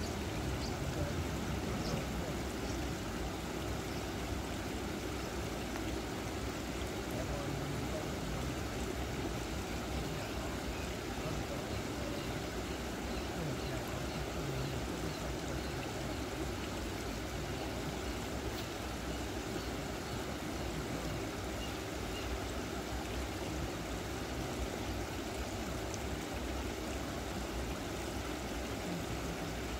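Water running steadily through a concrete dam spillway.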